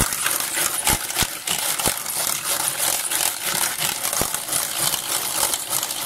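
Hand-cranked rotary egg beater beating two eggs in a bowl: a steady, fast metallic clatter of the gears and whirling beaters, with a few sharper knocks of the beaters against the bowl.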